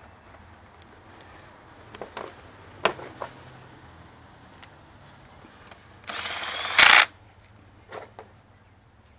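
A few light clicks and knocks of work under the hood, pressing the plastic engine cover back into place. Near two-thirds of the way through there is a loud noisy burst lasting about a second.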